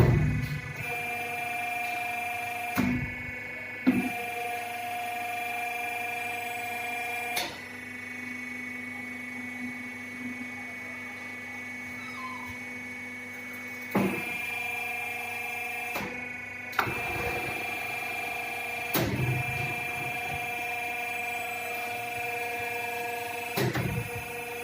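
CNC pipe bending machine running: a steady whine made of several held pitches, broken by clunks about every few seconds as the machine works through its cycle.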